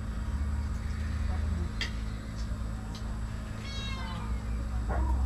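A single short, high, falling animal call about four seconds in, over a steady low rumble, with a few faint clicks before it.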